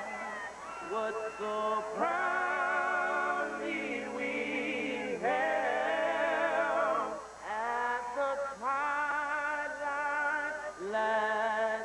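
A small group of young men singing together in harmony into a microphone, holding long notes with vibrato in phrases separated by short breaths.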